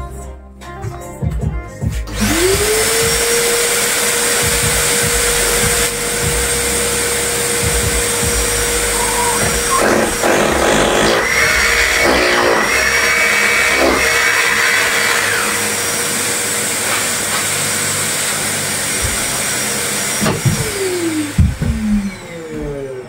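Cordless stick vacuum cleaner switched on, spinning up and running steadily at one pitch for about 18 seconds, then switched off and winding down. A higher whine comes in for a few seconds in the middle, with the nozzle held against the wall.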